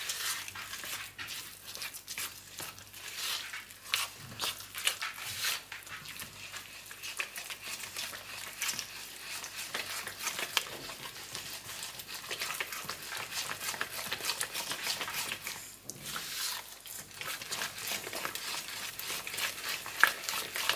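A silicone spatula stirring thick brownie batter in a plastic bowl: eggs being mixed in with quick, irregular scraping and clicking strokes. There is a brief pause about three quarters of the way through.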